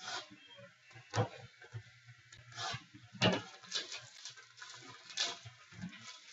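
Trading cards and their packaging being handled: irregular rustles and light taps, the sharpest about a second in, just after three seconds and just after five seconds.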